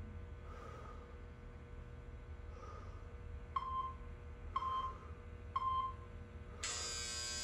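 Interval timer counting down with three short beeps a second apart, then a loud steady buzzer starting about a second before the end, marking the end of a one-minute exercise set. A low steady hum runs underneath.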